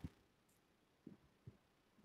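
Near silence: room tone, with two faint, brief sounds after about a second.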